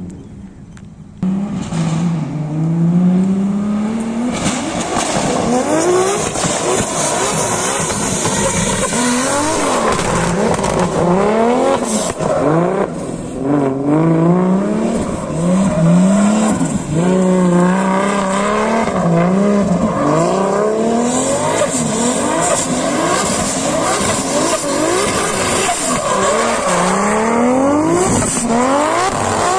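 A drift car sliding sideways under power: the engine revs up and falls back over and over, with tyres squealing and skidding on the asphalt. The sound jumps in about a second in and stays loud.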